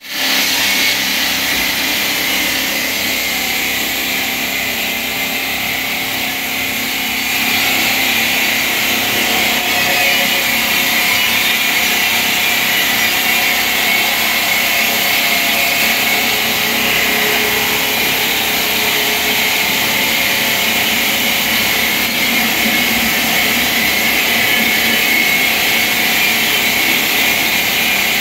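Marble-factory machinery running steadily and loudly: a stone-cutting machine working marble. Its grinding, hissing noise gets slightly louder about seven seconds in.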